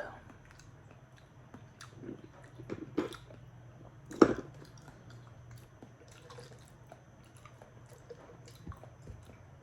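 Eating raw oysters close to the microphone: wet chewing and slurping with scattered clicks and smacks, the loudest about four seconds in.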